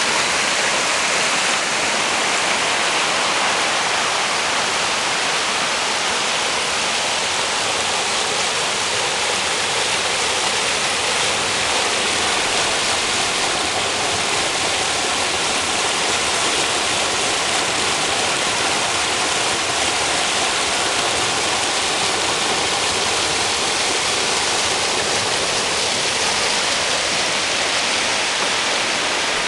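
Mountain stream water rushing steadily over rocks in a gorge, a full, even rush without breaks.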